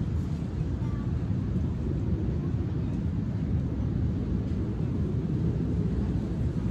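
Steady low rumble of wind buffeting an outdoor microphone, with no distinct events.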